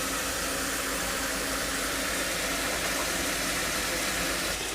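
Onion-tomato masala with chilli powder and sugar sizzling steadily in hot oil in a kadai, with a faint low hum under it, and no stirring.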